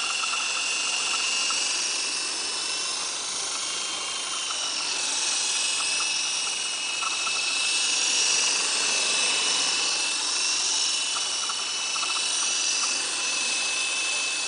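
Esky Big Lama electric coaxial RC helicopter in flight: a steady high-pitched motor whine over the whir of its twin rotors, the pitch wavering a little as it manoeuvres.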